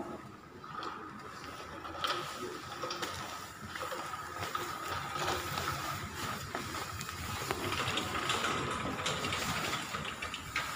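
Rattling and clicking of medical supplies being moved, with irregular small clicks throughout.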